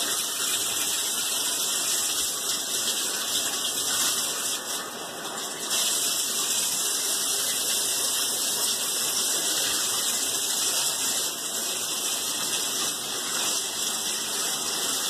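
Water running steadily from a bathtub tap, turned on and left to settle at a medium-warm temperature.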